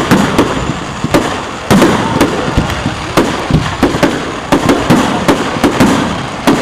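Fireworks display: a rapid, irregular string of sharp bangs and cracks from exploding aerial shells, several a second at times, over a continuous crackling haze.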